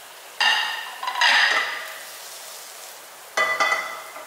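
Metal cookware clanking on a gas hob: a sharp ringing knock about half a second in, a louder one just after a second, and another near the end as the nonstick wok is taken by its handle and moved on the burner.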